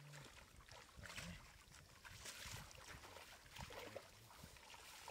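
Faint sloshing and small splashes of shallow water, irregular and scattered.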